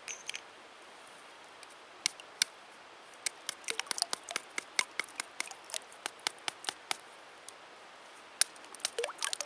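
Quick, sharp clicks and scratches of a piece of creek shale being scraped against another stone to test how soft it is. The scraping starts about two seconds in, stops briefly, and picks up again near the end.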